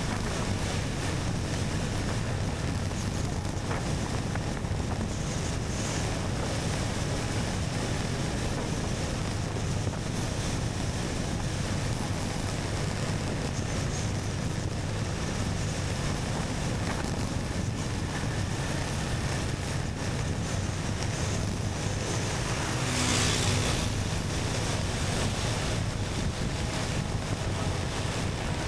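Motorcycle on the move: wind rushing over the helmet- or bike-mounted action camera's microphone, with the engine's low steady drone underneath. A brief louder rush comes about three-quarters of the way through.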